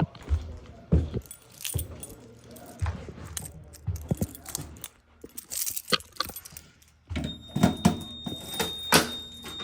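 Keys jangling and clinking in irregular bursts. About seven seconds in, a steady high-pitched tone starts and holds.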